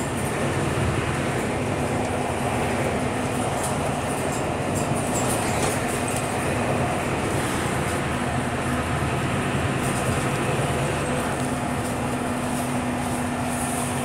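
Cabin noise aboard a Scania K320UB city bus under way: a steady drone from the rear-mounted engine and driveline with road noise, and light rattles from the interior fittings.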